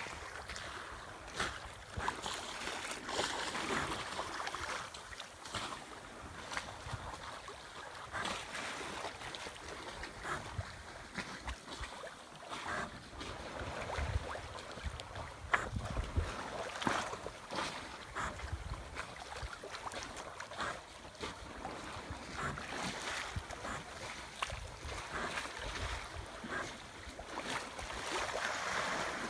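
Water sloshing and splashing against a small sailing yacht's hull, with wind gusting over the microphone in uneven surges.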